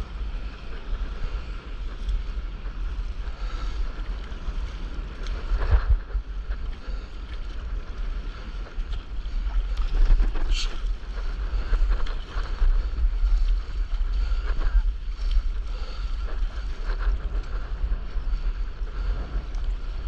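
Wind buffeting the action camera's microphone over water washing and splashing around a stand-up paddleboard riding through waves, with a couple of louder splashes of the paddle and spray, one about six seconds in and one around ten seconds.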